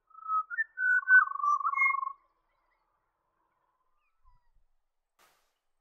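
Pied butcherbird singing: a phrase of clear, whistled notes lasting about two seconds, ending on a longer, lower held note, then a pause.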